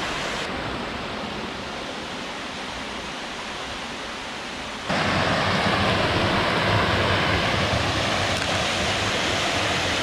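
Waterfall on a creek: a steady rush of falling water that turns suddenly louder about five seconds in.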